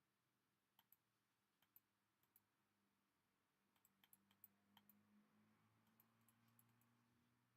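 Near silence with faint scattered clicks, several close together about four seconds in, over a faint low hum.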